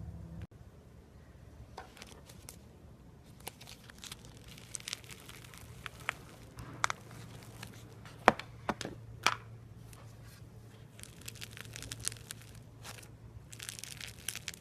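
Crunchy slime being squeezed and pressed by hand, giving irregular crackles and pops, with a loud crack about eight seconds in and a denser run of crackling near the end.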